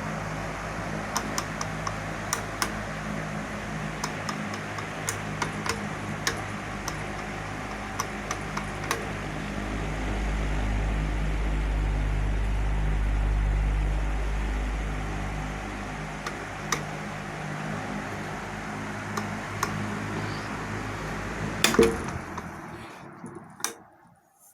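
Hatari 18-inch electric fan running with a steady motor hum, broken by irregular sharp clicks from its rear oscillation gearbox: the ticking of worn, damaged gear teeth. Near the end there are two loud clacks, and the motor winds down and stops.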